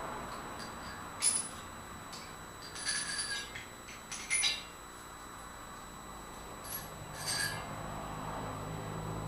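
Light metallic clinks and short rattles of steel parts being handled, a handful of separate clinks with quiet gaps between them.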